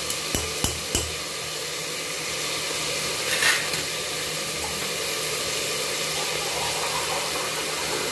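Soaked rice sizzling in hot ghee with fried onion in a pressure cooker, a steady frying hiss. A few sharp knocks in the first second, as the emptied bowl is tapped against the pot.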